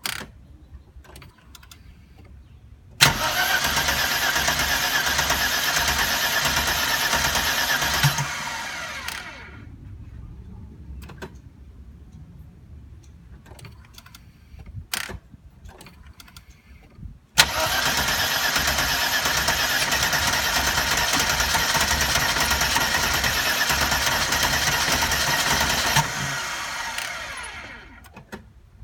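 1992 Mercedes 300E's 2.6-litre M103 straight-six cranked by its starter twice, about five seconds and then about eight and a half seconds, turning over evenly without catching. The second attempt, with the accelerator pressed, sounds different, but the engine still won't fire: a no-start.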